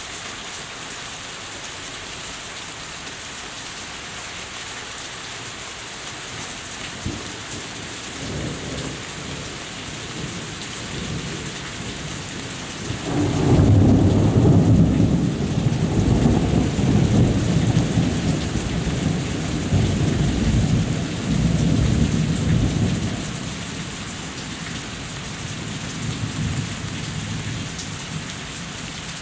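Steady heavy rain falling and running off a house, with a long rolling rumble of thunder that builds from about a quarter of the way in, is loudest for about ten seconds in the middle, then fades out.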